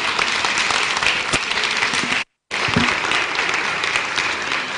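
Audience applauding, a dense steady clatter of many hands clapping, broken by a brief gap of total silence about halfway through.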